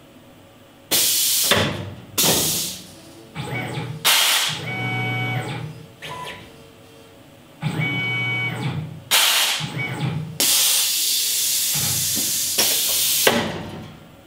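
Tormach 1100 mill's automatic tool changer running a tool change: a series of sharp hisses of compressed air, one long one near the end. Twice in the middle a motor whine and hum run under the hiss as the spindle head and changer move.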